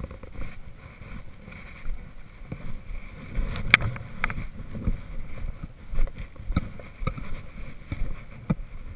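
Footsteps and trekking poles on a dirt mountain trail: irregular thuds of boots and sharp clicks of the pole tips striking the ground, the loudest click about four seconds in, over a low rumble of wind on the microphone.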